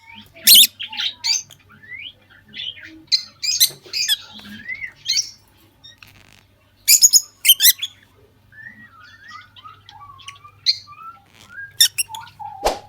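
African lovebirds chirping and squawking: a string of sharp, shrill calls in irregular clusters, with short gliding whistles between them, over a faint steady low hum.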